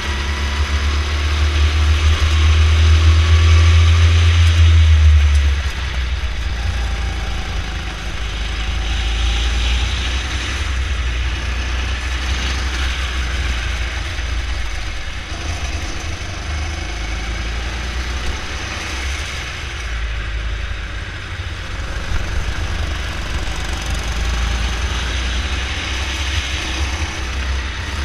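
Go-kart engine running under the driver as the kart laps the track, with the note rising and falling through the corners. It is loudest for the first five seconds or so, then drops off suddenly.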